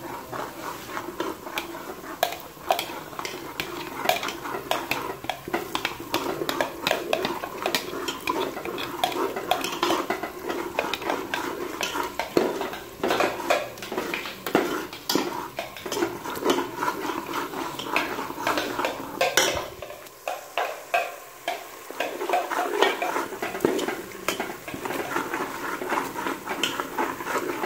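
Steel spoon scraping and clinking against the sides and bottom of an aluminium pressure cooker as onions are stirred in hot oil, over a light frying sizzle. The clinks come irregularly and often, several a second.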